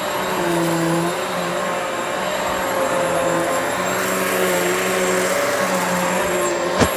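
Hoover Elite Swivel XL Pet upright vacuum cleaner running steadily, a constant whine over a lower hum that comes and goes. One sharp knock near the end.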